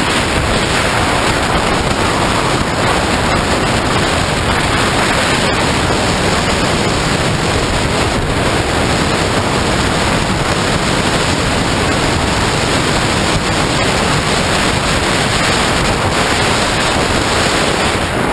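Strong wind blowing across the camera microphone, a loud, steady rushing noise.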